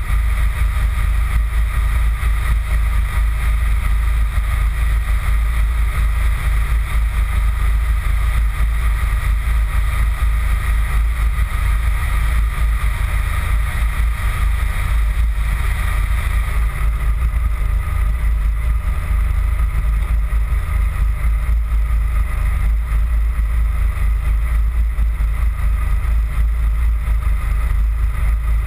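A car engine idling steadily, heard as a loud, even, deep rumble.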